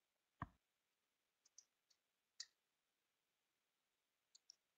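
Near silence with a handful of faint, short clicks. The clearest comes about half a second in, and a few tinier ticks follow around one and a half, two and a half, and four and a half seconds.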